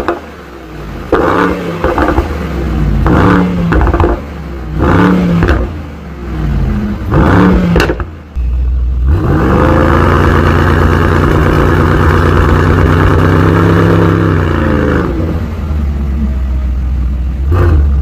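Mercedes-AMG GT 63 S's twin-turbo V8 revved while standing still: a series of short throttle blips, then the revs held high for about six seconds before dropping back to idle, with one more blip near the end.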